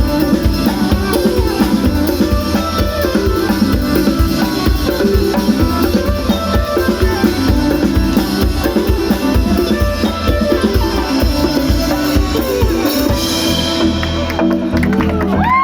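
Live band music with drum kit and percussion playing throughout at a steady loud level.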